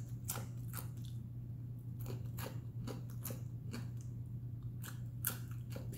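Close-up chewing of Brussels sprouts with the mouth closed: a string of small crunchy clicks several times a second, over a steady low hum.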